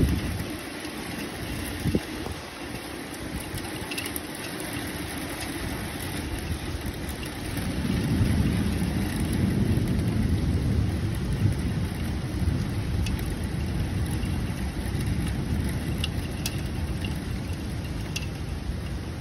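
Steady heavy rain, with a low rumble of thunder swelling about eight seconds in and slowly fading. A few sharp ticks of drops hit close by.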